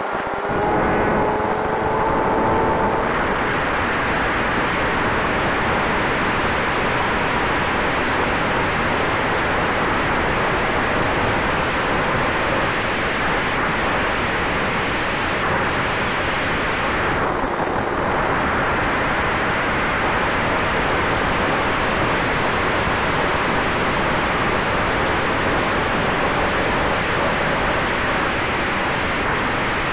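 Airflow rushing over a camera mounted on an E-flite 1.2 m F4U Corsair electric RC plane in flight, with the electric motor and four-blade propeller a faint steady tone under the wind. A higher tone climbs briefly in the first few seconds, and the rushing thins for a moment about 17 seconds in.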